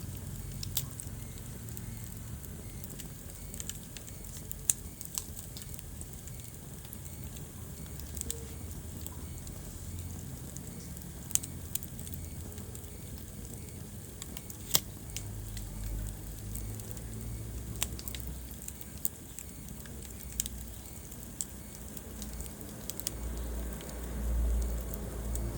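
Wood fire burning in a fireplace, crackling with sharp, irregular pops over a low rumble of the flames that swells near the end.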